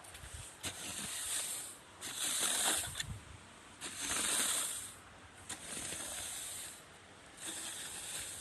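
Rice grain being raked across a drying surface in five swishing strokes, each about a second long, with short pauses between them.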